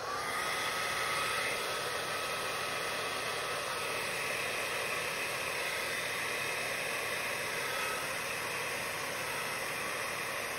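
Handheld hair dryer switched on and running steadily: a rush of blown air, with a faint whine over it for the first eight seconds or so.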